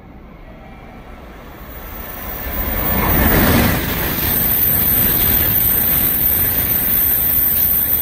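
Tokaido Shinkansen high-speed train passing through a station at speed: a rush of air and wheel noise swells over the first three seconds, then holds loud and steady as the cars go by.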